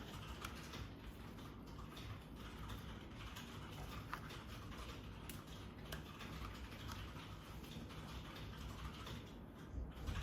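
Faint handling noise: scattered small clicks and taps of small plastic toy pieces being handled, over a low steady rumble.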